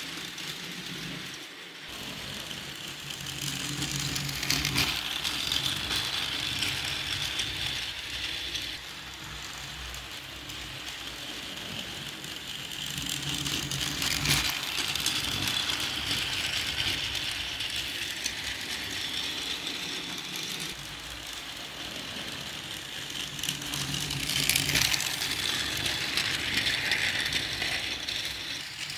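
Battery-powered toy train's small electric motor and plastic gears whirring as it runs around its track. It swells louder three times, about ten seconds apart, as the train comes past close by on each lap.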